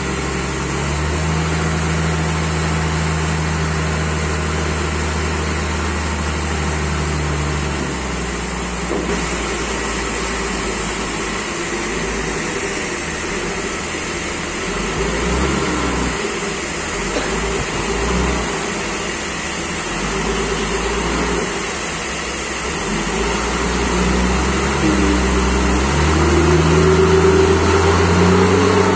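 Forklift engine running and working as the forklift pushes a large log. Its pitch holds steady for several seconds, then varies as the throttle changes, and rises again near the end.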